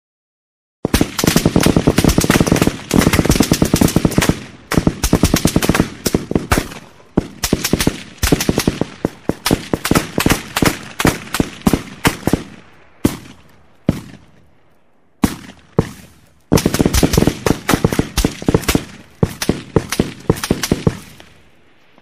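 AK-47 assault rifle firing on full automatic. Long rapid bursts start about a second in, then a few widely spaced single shots near the middle, then another long burst. Each shot trails off in an echo.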